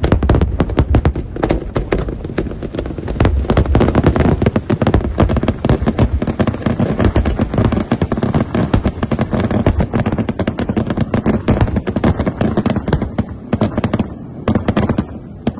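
Fireworks display going off in a dense, rapid barrage of bangs and crackles over a low rumble, thinning to a few last bangs near the end.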